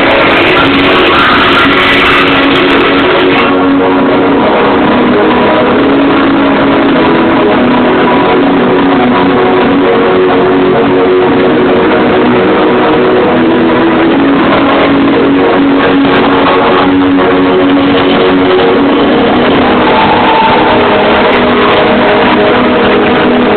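Loud recorded music with guitar playing over a hall's sound system, accompanying a stage dance routine.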